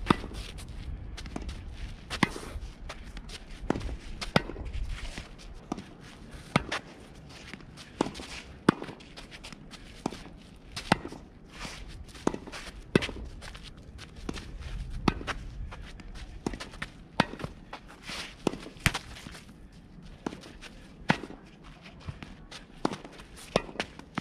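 Tennis balls being hit with a racket about every two seconds, some strikes coming in quick pairs, between shuffling footsteps on a dirt court.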